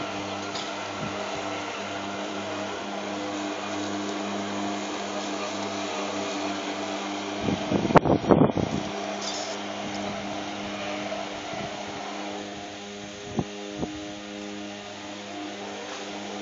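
Robomow RL500 robotic lawnmower running across the grass, its electric motors giving a steady hum. A short cluster of loud knocks comes about halfway through, and two light clicks near the end.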